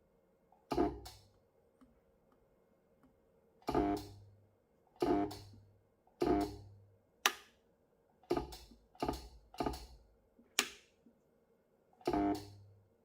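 Background guitar music: sparse plucked or strummed chords, each ringing out and fading, with short pauses between them.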